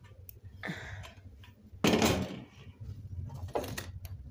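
Metal knocks and scraping from a heating stove's door being handled. The loudest is a sharp clatter about two seconds in, with a smaller knock just before one second and another near three and a half seconds.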